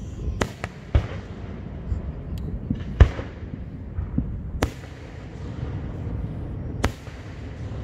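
Aerial fireworks bursting: about six sharp bangs at irregular intervals, the loudest about three seconds in, over a steady low rumble.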